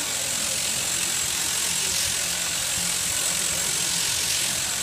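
Electric sheep shears running steadily while shearing a sheep.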